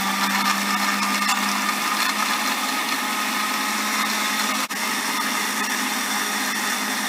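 Countertop blender running at speed, blending milk, ice and fresh strawberries into a milkshake: a steady motor noise with a low hum, dipping for an instant about halfway through.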